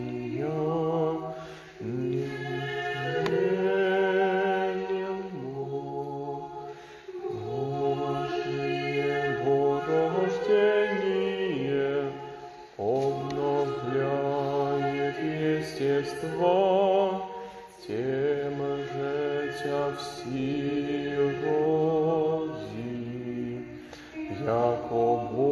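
Church choir singing a slow Orthodox liturgical chant in several parts, long held chords moving together phrase by phrase.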